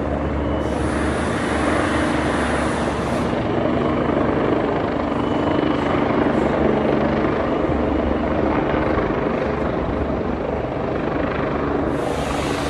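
Rescue helicopter's rotors and turbine engine running loud and steady.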